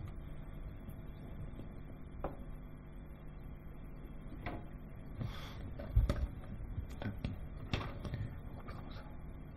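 Scattered clicks and knocks of kitchen work: a knife cutting a foie gras terrine on a cutting board and metal utensils set down on a stainless-steel worktop, with a short scrape and then a dull thump about six seconds in. A low steady hum lies underneath.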